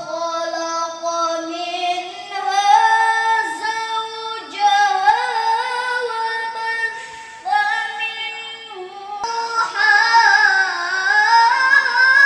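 A girl's voice chanting Qur'anic recitation (tilawah) in long, held, ornamented phrases that waver up and down in pitch, with short breaks between phrases.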